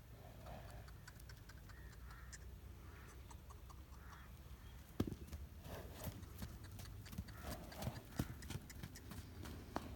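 Horse's hooves clopping on hard ground in an irregular run of knocks. The knocks grow louder and come thicker from about halfway in, opening with one sharp knock.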